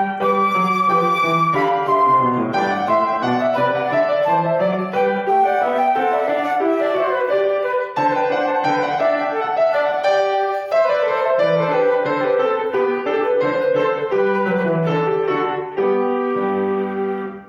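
Duet of a flute-type wind instrument playing a lively dance melody over piano accompaniment. The phrase ends on a held chord just before the end.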